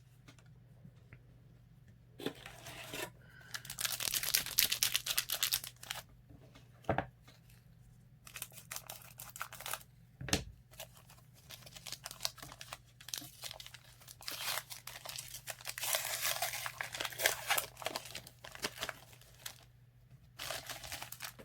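Plastic trading-card pack wrapper being torn open and crinkled, in several crackling spells with a couple of sharp clicks between them.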